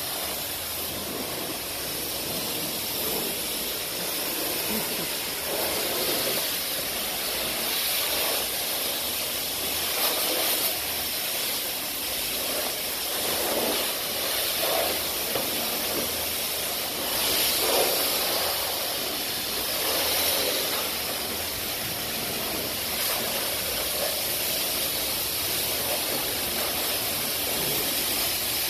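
High-pressure spray wand at a self-service car wash, jetting water onto a car's body and the wet floor with a steady hiss of spray. The noise swells and eases a little as the jet moves.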